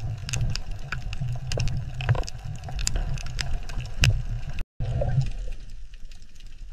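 Underwater reef ambience: a steady low rumble of water movement with many scattered sharp clicks and crackles. It breaks off for an instant about two-thirds of the way through, then resumes quieter.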